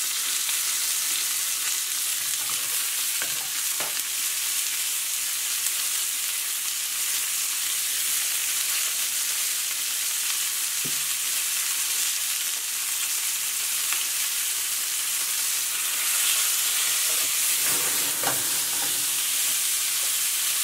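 Chicken pieces frying in hot olive oil in a skillet, a steady sizzle, with a few light knocks and clicks now and then.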